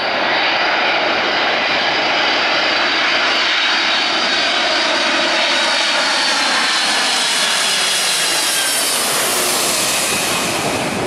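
Boeing 747-400 on final approach passing low overhead: the steady jet noise of its four turbofan engines with a high whine that slowly falls in pitch, the hiss growing brighter as it comes overhead. The high hiss drops away suddenly at the very end.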